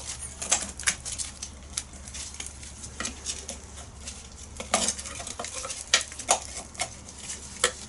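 Metal hand tool clinking and scraping against a classic Mini's steel rear brake backplate and radius arm: irregular sharp metallic clicks and knocks, several seconds apart, with quieter scraping between.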